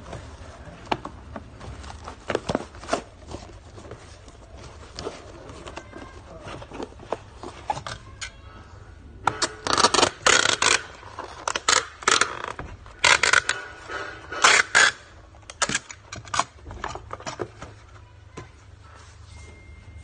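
Packing tape pulled off a handheld tape dispenser and run across a cardboard box in about five loud ripping strips in the second half. Lighter knocks and rustles of the cardboard being handled come before and after.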